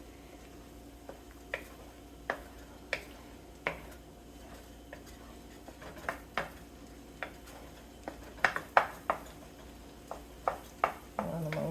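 Cooking utensil stirring scrambled eggs in a frying pan, clicking and scraping against the pan in irregular taps, with a quick run of louder knocks about eight and a half seconds in.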